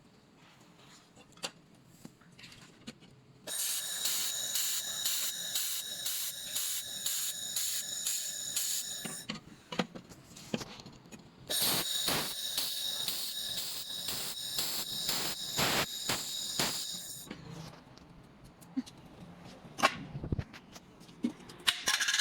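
2000 W handheld pulsed laser welder running on 2 mm galvanized steel sheet: two welding passes of about six seconds each, a high buzzing hiss with rapid clicks through it. The passes are separated by a couple of seconds of scattered clicks.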